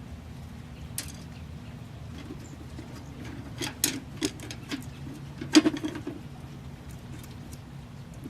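Scattered sharp clicks and light rattles of plastic zip ties and wooden dowels being handled and fitted onto a hanging plastic bird feeder, over a steady low hum. The loudest click comes a little past the middle.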